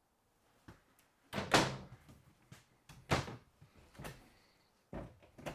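Cabinet doors being opened and shut by hand: a series of separate knocks and clicks, the loudest about one and a half seconds in.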